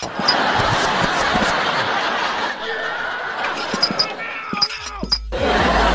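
Laughter from a group of people: many overlapping chuckles and giggles. About five seconds in, it gives way to music with a heavy bass beat.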